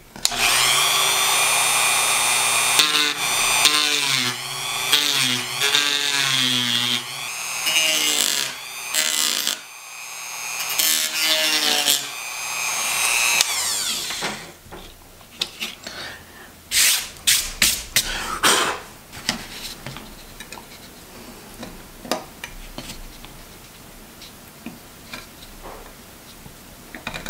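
Dremel rotary tool with a cut-off disc, grinding through the plastic ties under an N scale model railway turnout: a loud motor whine whose pitch dips and recovers as the disc bites. About 14 seconds in it stops, followed by quieter scattered clicks and light scraping.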